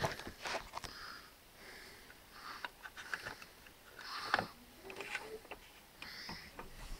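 Soft breathing and sniffing close to the microphone: a hissy breath about every one and a half to two seconds, with a few faint clicks.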